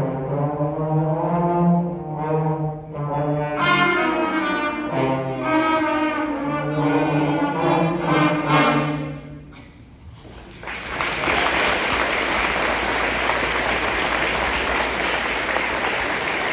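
Middle-school concert band of brass and woodwinds, trombones prominent, playing the closing bars of a piece, with the music ending about nine and a half seconds in. After a brief lull the audience breaks into steady applause.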